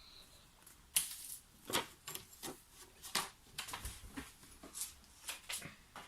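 Irregular light clicks and taps of small RC truck parts being handled as a piece is worked off the suspension, about a dozen scattered through.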